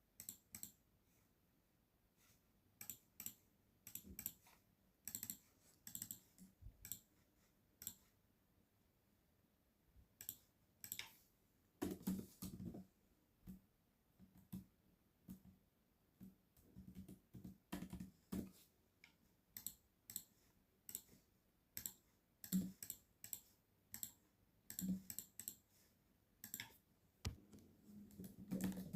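Typing on a computer keyboard, with mouse clicks, in irregular bursts of sharp key clicks and a short pause about eight seconds in.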